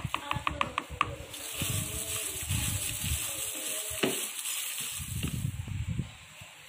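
A hand in a plastic-bag glove squeezing and kneading sliced onions and chillies with salt in a plastic basin: plastic crinkling and wet squelching, the salt-kneading step of mixing the vegetables. A quick run of light clicks in the first second and one sharp click about four seconds in; the handling stops about six seconds in.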